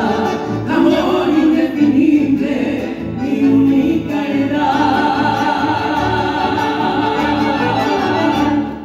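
A woman singing a long held note with vibrato, starting about halfway through, over a band of bandoneón, acoustic guitar and electric bass keeping a steady beat. The music drops off sharply at the end.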